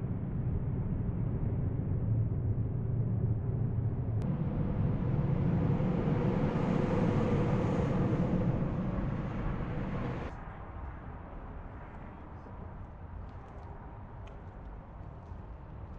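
Car driving noise, a steady low rumble of road and engine, which swells louder for several seconds and then drops off suddenly about ten seconds in to a quieter steady background.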